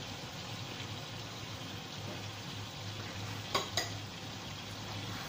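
Sauce simmering and sizzling in a wok, a steady hiss, with two sharp knocks in quick succession about three and a half seconds in.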